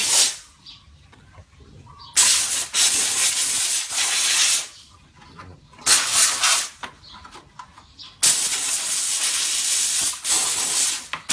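Handheld steam cleaner jetting steam through its pointed nozzle in repeated blasts, each one to three seconds long, starting and stopping sharply with short pauses between.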